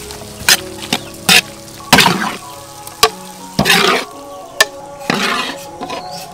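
Food being stir-fried in a hot pan: a spatula scraping and tossing in irregular strokes every half second to a second, with sizzling.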